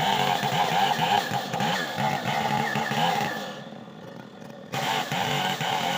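Stihl two-stroke chainsaw running at high revs. It falls away about three and a half seconds in, then comes back suddenly at full speed about a second later.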